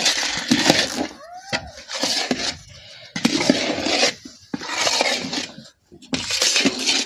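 Long metal spatula scraping and stirring thick halwa paste in a large iron kadhai, in repeated scraping strokes about a second long with short pauses between.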